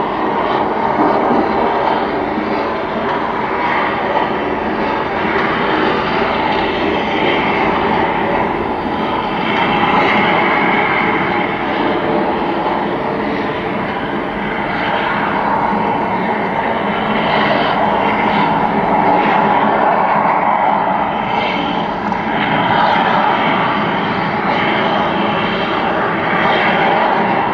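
Prometheus Volcano's eruption effect at Tokyo DisneySea: a loud, steady roar that swells and eases slowly.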